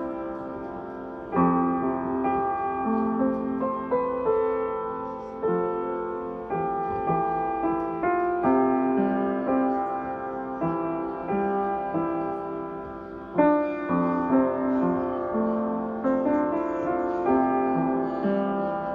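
Solo piano music, notes struck and ringing out.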